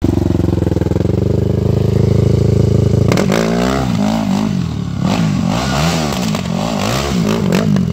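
Yamaha dirt bike engine running steadily for about three seconds, then revved up and down over and over as the rider spins the bike around on the wet road.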